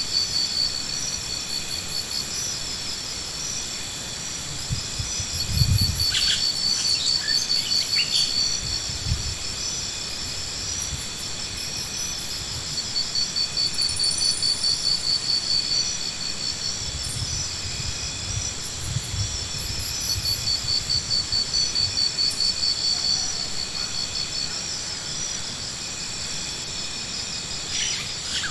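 Insects chirring in a steady high-pitched chorus that pulses in a fast, even rhythm, with a few low rumbles and light clicks now and then.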